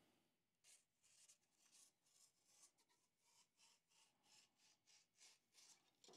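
Fillet knife slicing down the edge of a sheet of parchment paper to trim it straight: a run of faint, short scratching strokes, about three or four a second, beginning about half a second in.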